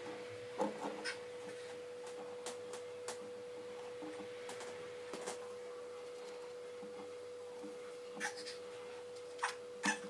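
Small neodymium magnetic balls clicking: a few sharp clicks scattered through as columns of balls are set on a hard table and a slab of balls is laid on top, over a faint steady tone.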